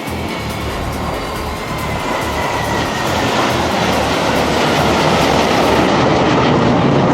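Jet fighter aircraft roaring past, the noise building slowly, with a faint whine that falls in pitch partway through.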